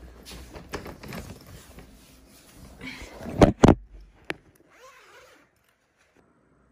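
Rustling and handling of a zippered fabric cover, then two quick zip pulls about three and a half seconds in, followed by a sharp click. The sound then cuts out to silence.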